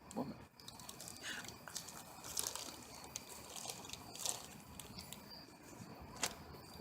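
Quiet night ambience: a faint steady high-pitched chirring of insects, with a few soft scattered clicks and crackles.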